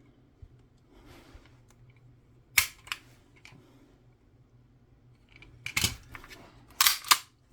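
Sharp metallic clicks and snaps of a 9mm pistol's action being worked by hand, a sign of its freshly worked trigger being tried out: a loud snap with a lighter click just after it a few seconds in, then a quick cluster of snaps near the end.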